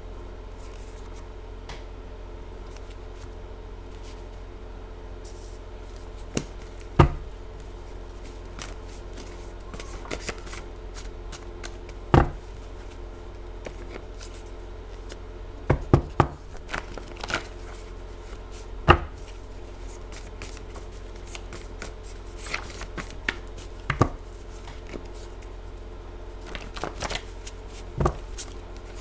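A deck of tarot cards handled at a table: about a dozen scattered sharp taps and knocks as the deck is tapped and set down, over a steady low hum.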